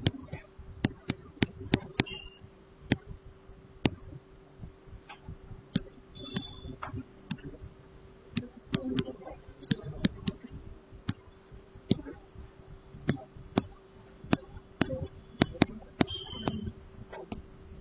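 Stylus tapping and scratching on a pen tablet during handwriting: sharp irregular clicks, a few short high squeaks, over a faint steady hum.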